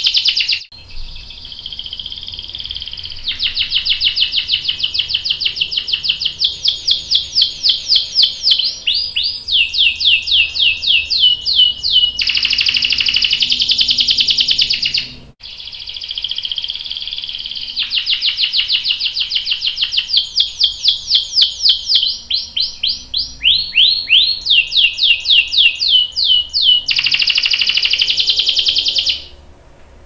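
Canary singing a long rolling song: a sustained buzzy phrase, then fast runs of repeated notes and quick downward-sweeping notes, then another steady rolling phrase. Halfway through it cuts off abruptly and the same sequence of phrases starts again.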